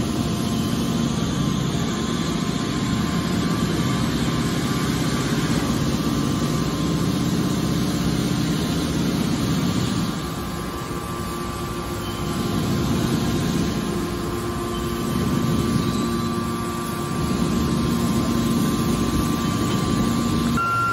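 A hydraulic scrap metal baler running: a steady machine drone with a constant high whine over it. The noise dips about ten seconds in and swells again twice.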